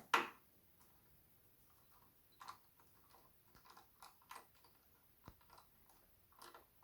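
Faint, scattered light clicks and ticks of a small screwdriver backing a screw out of a computer's hard-drive housing.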